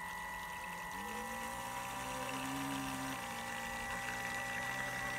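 Electric drive motors of a radio-controlled model tug whining steadily, their hum gliding up about a second in and then stepping up and down in pitch as the throttle is changed, over a thin high steady whine.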